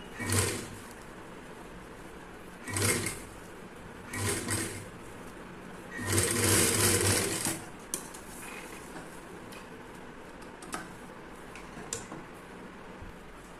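Sewing machine stitching pleats into fabric in four short runs, starting and stopping as each pleat is folded under the foot. The last run is the longest, about a second and a half, and a few light clicks follow.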